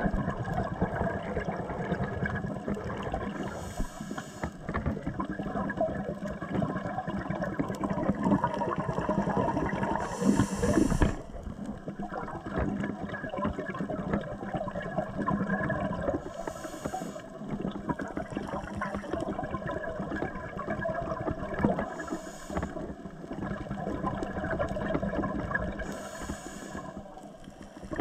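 Underwater sound picked up through a GoPro's waterproof housing: a steady muffled rush with constant crackling and a low hum. About every six seconds a short hiss breaks through, the breathing cycle of a diver's scuba regulator.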